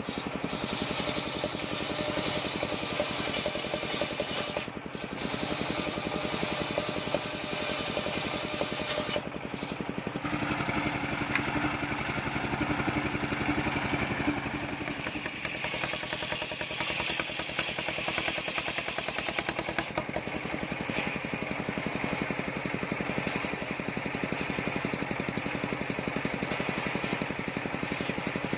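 Engine-driven large circular saw ripping waru wood into battens: a steady engine drone under the hiss of the blade cutting. The sound shifts about nine seconds in, when the highest hiss drops away while the machine runs on.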